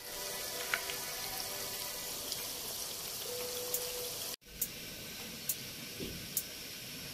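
Potato lacha pakoras deep-frying in hot oil in a pan: a steady sizzle with scattered pops and crackles. It cuts out for an instant about four seconds in, then carries on with sharper pops.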